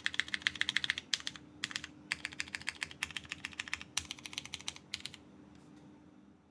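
Typing on a KBDfans Tofu TKL mechanical keyboard with lubed Cherry MX Purple tactile switches and GMK keycaps on a polycarbonate plate, PCB gasket mounted. The keys are struck in quick bursts of keystrokes, and the typing stops about five seconds in.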